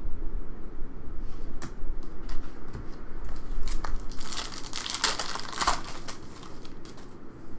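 Trading card pack wrapper crinkling and being torn open, with scattered crackles at first and a dense burst of crinkling about four to six seconds in.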